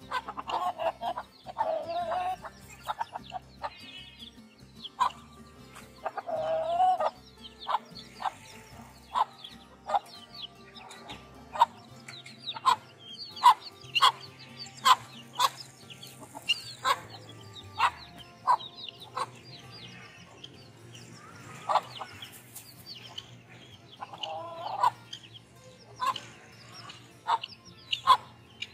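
Chicks peeping constantly in short, high, quick peeps while foraging with the mother hens. Now and then an adult bird gives a longer, lower clucking call, near the start, about a quarter of the way in, and again near the end.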